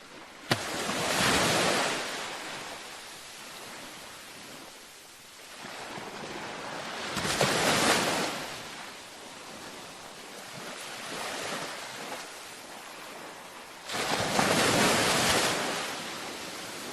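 Ocean waves breaking gently on a beach, three times, about every six and a half seconds. Each is a rush of surf that fades back into a softer hiss of wash, and the first begins with a sharp click.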